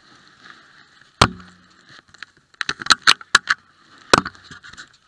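Sharp knocks and clanks inside the race truck's cab: one loud knock about a second in, a quick run of five or six around three seconds in, and one more just after four seconds, over a faint steady hiss.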